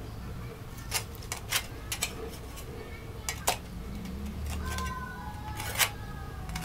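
Cleaver chopping into a goat head on a wooden chopping board: about nine sharp, irregular knocks, the strongest near the end.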